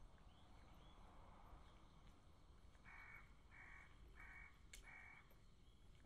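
A crow cawing four times in an even series, starting about three seconds in, faint over low background hum.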